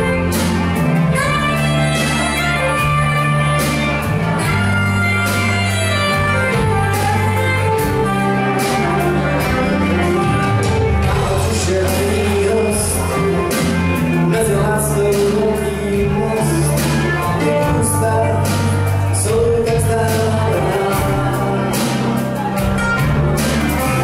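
Live rock band playing a song on electric guitars and a drum kit, with a steady beat and sustained low bass notes.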